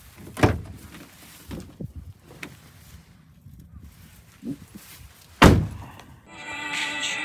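A few knocks and thumps around the open cab of a Kia Bongo truck, with two sharp, louder ones about half a second in and about five and a half seconds in. Background music starts near the end.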